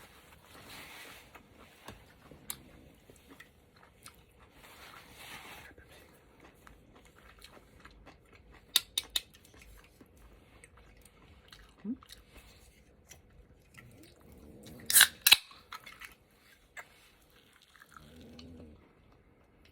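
Close-miked chewing and eating of soup with rice cakes and tofu puffs: soft wet mouth sounds, three quick sharp clicks about nine seconds in, and a louder pair of sharp noises about fifteen seconds in.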